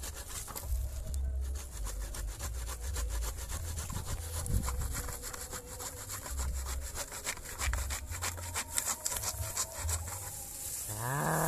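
Handsaw cutting through the woody stem or root at the base of a wild ileng-ileng shrub, in quick, even back-and-forth strokes. Near the end a short pitched call sounds over the sawing.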